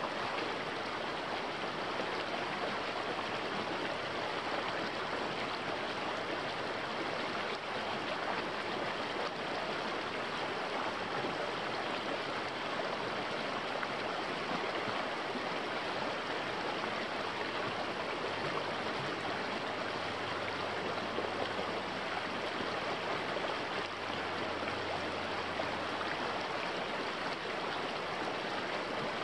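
Small creek rushing steadily over rocks in a shallow riffle, a continuous even wash of running water.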